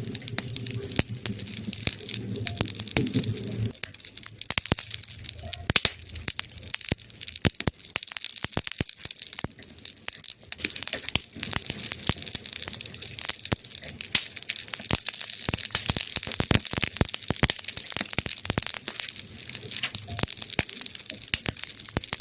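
Campfire crackling, with frequent sharp pops and snaps from the burning wood over a steady hiss. A low hum sits under it for the first few seconds, then cuts off.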